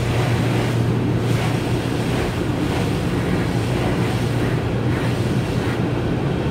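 Automatic car wash heard from inside the car: water jets spraying steadily against the windows and body, over a steady low hum.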